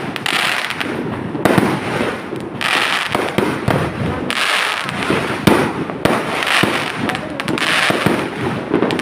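Fireworks going off in quick succession: sharp bangs mixed with stretches of crackling hiss, coming in waves roughly every second or so.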